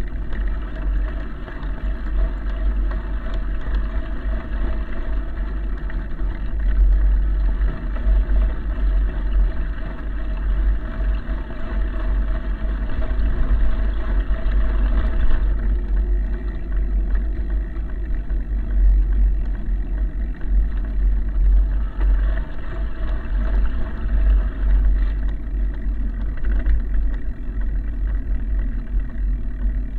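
Wind buffeting the microphone of a camera riding on a moving vehicle: a loud, steady, rushing rumble with a faint running hum under it. The upper part of the noise drops a little about halfway through.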